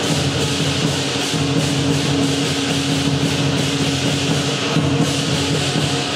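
Lion dance percussion, drum, cymbals and gong, playing a continuous rapid beat over a steady ringing tone.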